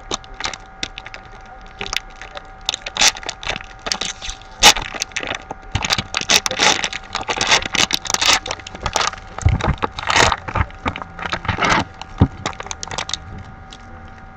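A sealed trading-card box being torn open by hand: plastic wrap and cardboard crinkling and snapping in irregular crackles, busiest in the middle.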